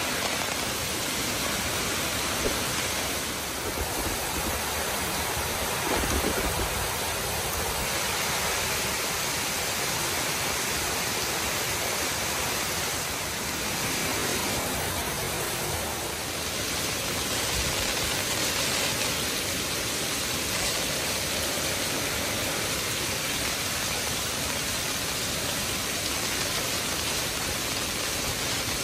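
Strong monsoon rain falling steadily on a paved courtyard and trees: a dense, even hiss of drops splashing on wet paving.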